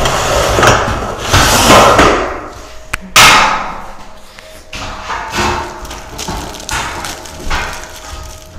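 Steel shelf supports being handled and fitted into the frame of a black steel boltless shelving rack: metal clattering and scraping with knocks, the loudest a sharp knock about three seconds in.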